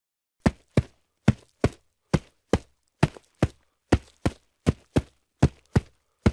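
Hooves walking on a hard surface: a steady run of sharp clip-clop knocks, falling roughly in pairs, about two to three a second, starting half a second in.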